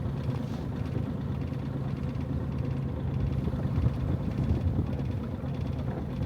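Boat engine running steadily with a low even hum, heard over rushing wind and water noise.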